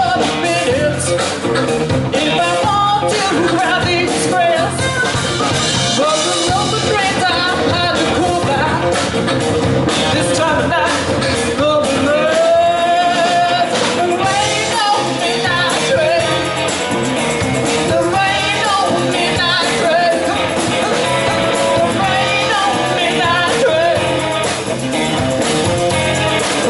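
Live blues band playing: electric guitar and bass guitar under a woman's lead vocal, with a man's voice singing along.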